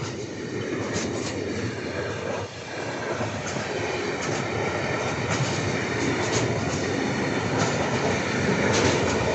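Freight train rolling past, its wagons' wheels rumbling and clacking over the rail joints in scattered sharp clicks, slowly growing louder.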